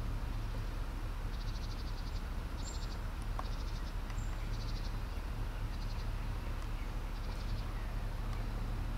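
Outdoor ambience: a steady low rumble, with short, high trills of rapid ticking chirps repeating about once a second and a few thin, very high chirps.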